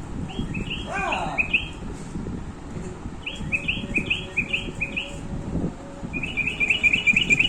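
Toy sensor love bird chirping in three short bouts of identical repeated chirps, the last a quicker trill near the end, with low knocks of handling underneath.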